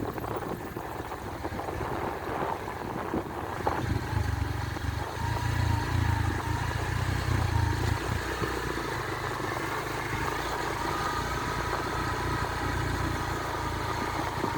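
Motorcycle engine running while being ridden, with a steady low rumble that grows heavier for a few seconds in the middle.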